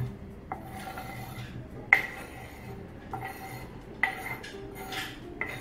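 A metal spoon scraping shaved palm sugar off a wooden cutting board into a glass mixing bowl. It clinks sharply four times, a second and a half to two seconds apart, and each clink rings briefly like glass.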